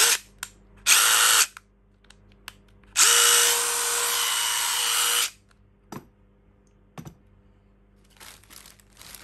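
DeWalt DCF887 brushless impact driver run unloaded in the air, spinning freely without hammering. There is a short burst about a second in, then a steady run of about two seconds from three seconds in, its whine rising as the motor spins up. Two clicks follow, and a plastic bag crinkles near the end.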